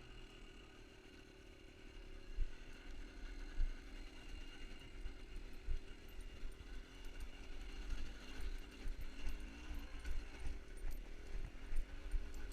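A small engine running steadily with a wavering pitch, over frequent low thumps and rumble.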